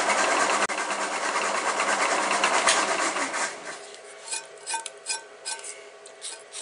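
Step drill bit in a mill spindle cutting into a thick 7075 aluminium plate: a loud cutting noise that barely advances past the countersink step. About three and a half seconds in, the cutting stops as the bit is lifted clear, leaving the spindle running quieter with a few light clicks.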